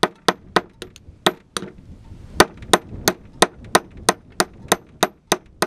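Hammer striking stone to knock off flakes: sharp, ringing strikes, about three a second, with one short pause about two seconds in.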